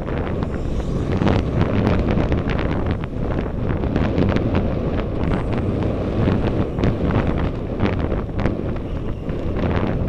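Wind buffeting an action camera's microphone on a road bike riding at speed: a loud, steady rumble with frequent short clicks and rattles.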